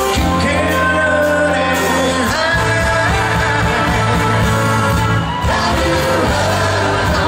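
Live rock band playing a song with singing: acoustic and electric guitars, bass guitar and drums.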